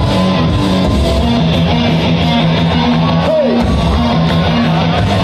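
Loud dance music from a club sound system during a live DJ set, recorded on a phone: a steady bass pattern under guitar-like riffing. A little over three seconds in, a brief falling sweep plays as the bass drops out for a moment.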